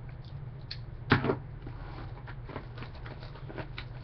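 Trading-card box and pack packaging being handled, cardboard and plastic wrapper: one louder crackle about a second in, then scattered small clicks and rustles, over a steady low hum.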